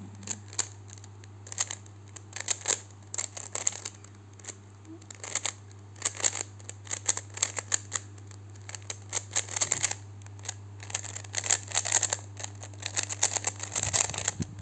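2014 Shengshou plastic 3x3 speed cube being turned fast during a timed solve: rapid runs of clicking and clacking as the layers snap around, broken by short pauses, over a steady low hum.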